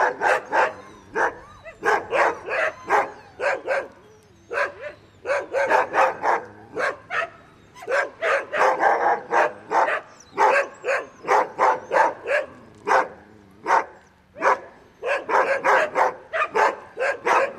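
Small dog barking over and over in quick runs of short, sharp barks, with a couple of brief pauses.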